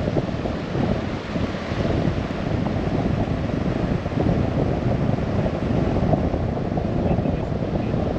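Steady low rumble of wind and road noise from a moving vehicle, with no pauses or distinct events.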